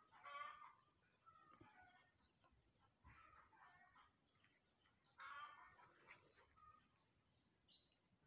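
Faint, distant chickens clucking: three short calls a couple of seconds apart, the last about five seconds in the loudest, over a steady high hiss.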